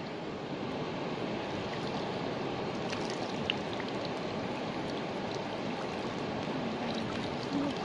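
Water streaming and pattering back into a river off the mesh of a lift net as it is hauled up, a steady splashy trickle.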